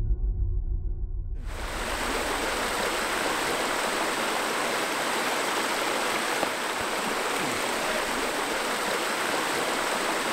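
A deep, low boom dies away over the first second and a half. Then a creek starts rushing steadily over rocks and keeps running.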